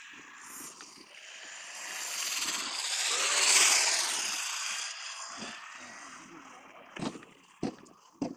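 Electric RC rally car with a 21-turn brushed motor, running on ice on home-made spiked tyres: the motor's whine and the hiss of the spikes on the ice swell as it passes close about three and a half seconds in, then fade. Near the end come three sharp knocks.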